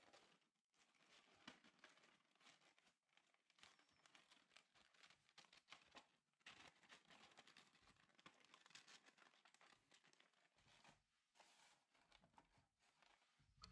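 Faint rustling and crinkling of folded origami paper, a kraft-paper frame and a green paper tetrahedron, handled and pressed together by hand.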